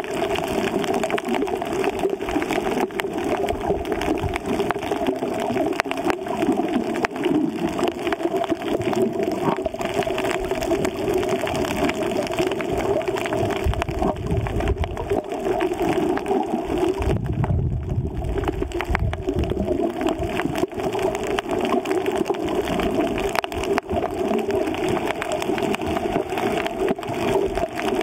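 Underwater water noise picked up by an action camera beneath the surface: a steady muffled hiss with fine crackling, and a deeper rumble of water movement for a few seconds past the middle.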